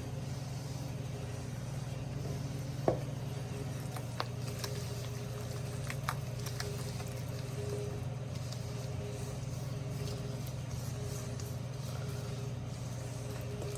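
An electric mixer running steadily, a low motor hum, beating the butter, sugar, oil and egg together, with a few light clicks of the beaters against the bowl.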